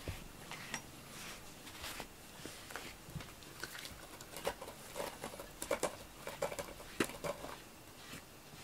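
Fingers scratching and tapping on a quilted fleece rug: scattered light rustles and taps, busiest from about four and a half to seven and a half seconds in.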